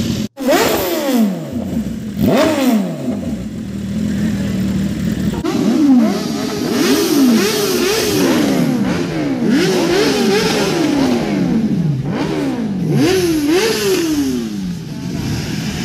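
Motorcycle engines revved with repeated throttle blips, the pitch rising and falling sharply with each one, over a steady idle. There are two single revs in the first few seconds, then a quick run of about a dozen blips from about six seconds in until near the end.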